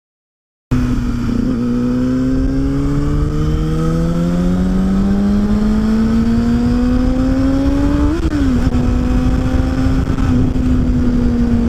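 Car on the move, its engine and road noise starting abruptly; the engine note climbs steadily as the car speeds up, wobbles briefly about eight seconds in, then holds level at a steady cruise.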